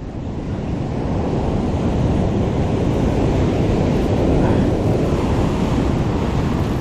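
Heavy surf breaking and washing over rocks, mixed with wind rumbling on the microphone; the rush builds over the first couple of seconds, then holds steady and loud.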